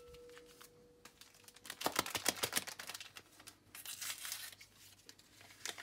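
Small paper sachet of baking powder being torn open and crinkled, in two short spells of rustling, about two seconds in and again about four seconds in.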